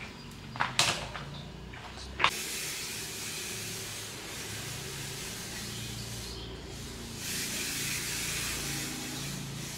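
Steady spray hissing in two long stretches with a short break about two-thirds of the way through, preceded by a few sharp clicks in the first couple of seconds.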